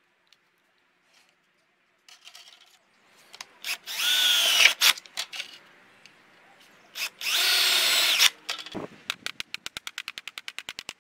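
Handheld power drill with a twist bit boring through thin sheet metal in two bursts of about a second, the motor whine rising and falling. From about nine seconds in, rapid even tapping begins, about seven strikes a second.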